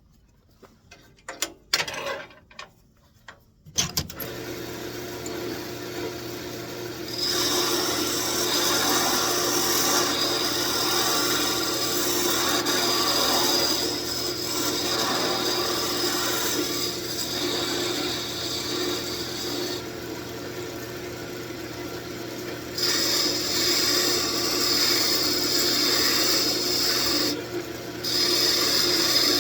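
A few knocks, then a wood lathe motor starts up about four seconds in and runs steadily. From about seven seconds a gouge cuts coves into the spinning wood in a rasping scrape, coming and going in passes with short pauses between them.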